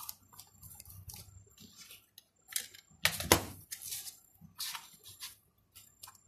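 Hands pressing and rubbing white packing foam into a cardboard box: a string of short, irregular scrapes and rustles, with the loudest, squeaky rub about three seconds in.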